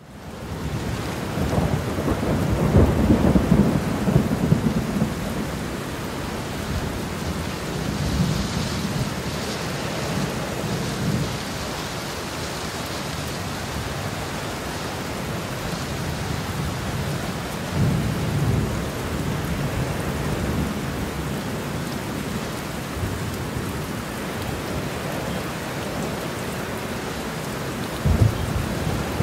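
Steady heavy rain with rolling thunder: a long, loud rumble in the first few seconds, further rumbles around the middle, and a sharp close crack near the end.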